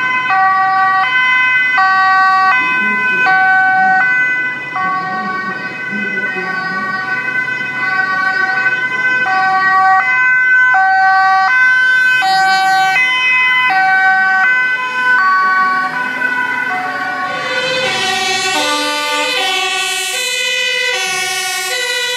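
Dutch emergency-vehicle two-tone (hi-lo) sirens alternating steadily as an ambulance drives past on a priority run. About eighteen seconds in, a fire engine's lower-pitched, faster two-tone siren joins with its engine noise.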